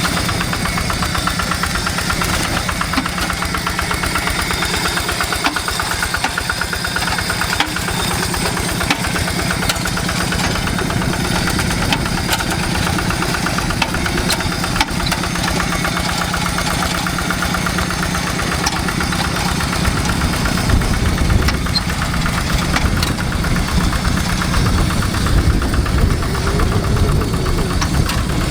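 A two-wheel hand tractor's single-cylinder diesel engine runs steadily with a rapid, even knock while ploughing the paddy. Its low rumble grows stronger about two-thirds of the way through.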